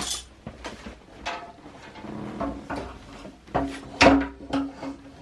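Knocks and clunks of a car seat with metal mounts being handled and set onto its seat base, the loudest clunk about four seconds in, followed by a brief ringing note.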